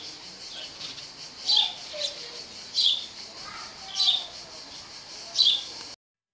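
A bird calling over and over: five short, sharp chirps falling in pitch, about one every second and a quarter, over faint outdoor background. The sound cuts off abruptly about six seconds in.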